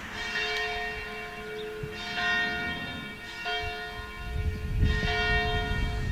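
Church bell tolling, struck about four times with each stroke ringing on into the next. A low rumbling noise grows under it near the end.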